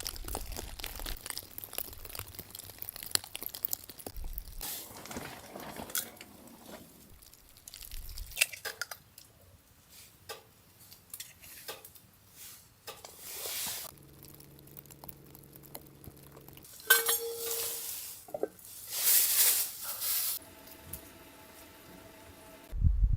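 Scattered clinks, knocks and crunches of small hard objects being handled, like cookware and utensils, with a few louder rustling stretches near the end.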